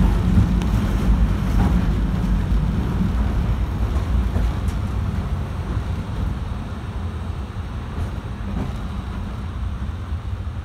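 Tosa Electric Railway streetcar running, heard from inside the car: a steady low rumble of the motors and wheels on the rails. The rumble slowly dies down as the tram eases off.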